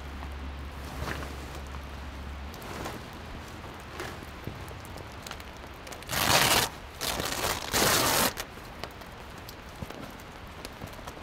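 Zipper on a canvas wall tent's door being pulled open in three quick rasps, about six to eight seconds in.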